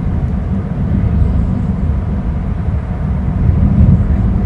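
Steady low rumble of wind buffeting an outdoor camera's microphone, mixed with the wash of surf on a rocky shore.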